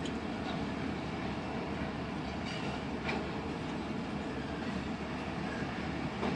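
Freight train cars rolling past on the track, a steady rumble of wheels on rail.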